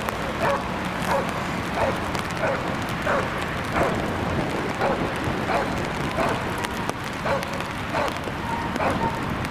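A dog barking repeatedly in a steady rhythm, about one and a half barks a second.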